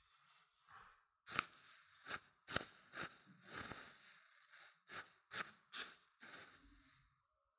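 Corn grits being stirred and rubbed against a silicone ear-shaped binaural microphone. The grains give about ten crisp, crunchy scrapes with soft rustling in between.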